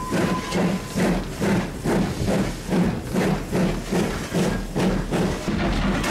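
Exhaust beats of BR Standard Class 2 2-6-0 steam locomotive 78022 working under steam, about two to three chuffs a second over a low rumble, heard from the footplate. Near the end the beats give way to a steadier rumble.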